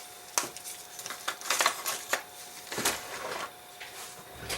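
Small clicks, taps and brief scraping rubs of watchmaker's tools and parts handled on a pocket watch movement at the bench, with the longest rub about three seconds in.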